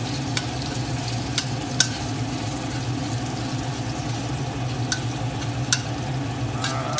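Oil sizzling gently in a wok with garlic, ginger and Sichuan pepper on low heat, stirred with a spatula that clicks sharply against the pan about five times. A steady low hum from a blower fan runs underneath.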